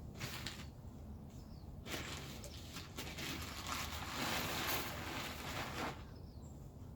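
Rustling and crackling of tent fabric and packaging being handled, with a short burst just after the start and a longer, louder stretch in the middle.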